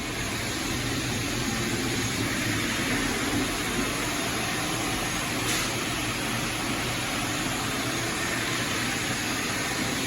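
Concrete floor grinding machines running, a steady even machine noise with no let-up.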